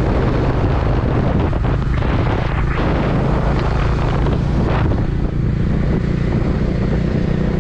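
Motorcycle engine running steadily at road speed, with wind rushing and buffeting over the microphone.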